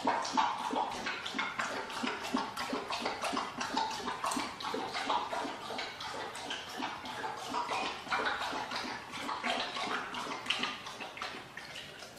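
Tiger cub lapping water, a quick irregular run of wet splashing laps, several a second.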